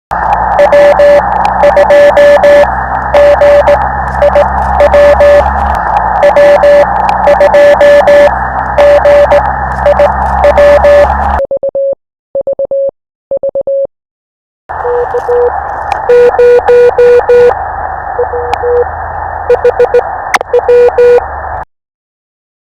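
Morse code from a ham radio: a single tone keyed in dots and dashes over steady static hiss. About halfway through the hiss drops out and the tone is keyed alone for a couple of seconds. Then the hissy radio signal comes back, with a fainter, higher second tone keyed under it.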